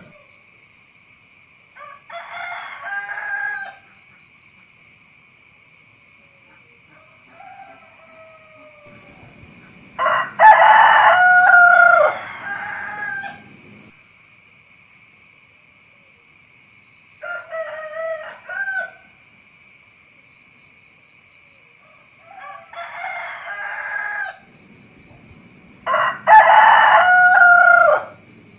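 Rooster crowing: two loud, long crows about ten seconds in and near the end, with three softer, shorter calls in between.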